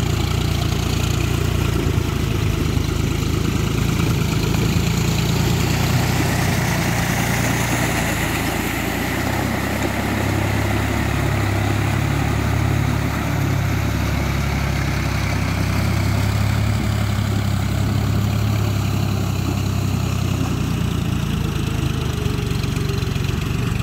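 Farm tractor's diesel engine running steadily while it works on cage wheels through a flooded rice paddy, puddling the mud with a rear tiller.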